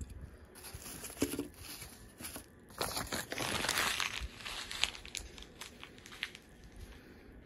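Toy packaging being handled, crinkling and rustling in irregular crackles, loudest for a stretch about three to five seconds in.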